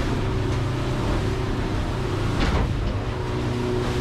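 Motorboat engine running steadily under way in choppy water, heard from inside the cabin, with the rush of water and spray over the hull. A short surge of water noise about two and a half seconds in, as a wave or spray hits the boat.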